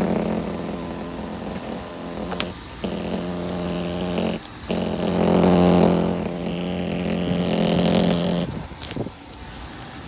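Loose tape on a foil flex-duct joint buzzing in the air leaking from the running furnace's ductwork: a steady pitched buzz that cuts out briefly twice and stops near the end.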